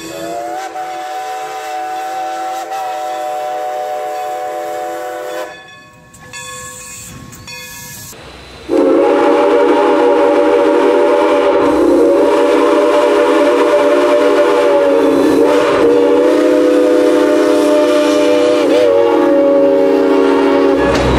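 Steam locomotive No. 40's Reading six-chime whistle blowing a long chord for about five seconds. After a short quieter gap, a louder Southern Pacific six-chime steam whistle sounds from about nine seconds in, held long with slight wavers in pitch.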